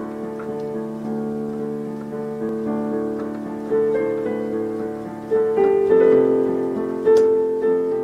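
Slow solo piano music: held notes ring over one another, with a few louder notes struck in the second half.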